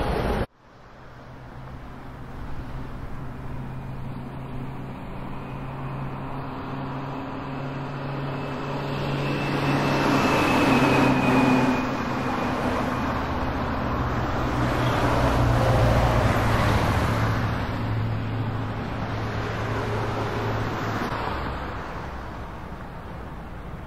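Road traffic: a steady engine hum with vehicles passing, swelling louder twice, about ten and about sixteen seconds in. The sound cuts out abruptly just after the start and comes back.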